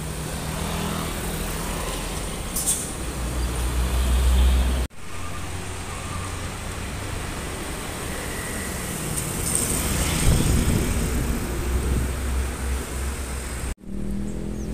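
Diesel container trucks driving past, a low engine rumble with tyre and road noise that swells as a truck passes about ten seconds in. There is a brief hiss about two and a half seconds in, and the sound drops out abruptly twice.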